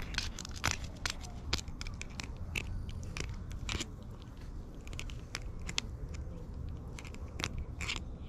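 An orange tabby cat biting and clawing at a ribbed fabric-covered stick, making irregular sharp clicks and crackles of teeth and claws on the cloth over a steady low rumble.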